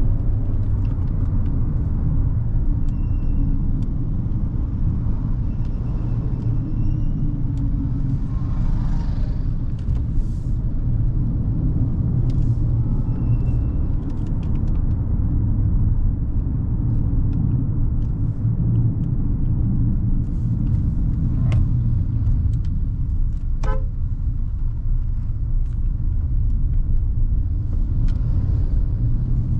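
Hyundai Creta's 1.5-litre four-cylinder petrol engine and tyres on the road, a steady low rumble of the car driving along, with a brief horn beep late on.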